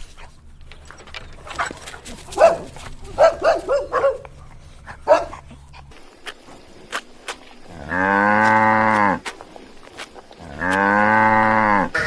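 Cow mooing twice, each a long drawn-out call of over a second, in the second half. Before that, several short calls from another animal.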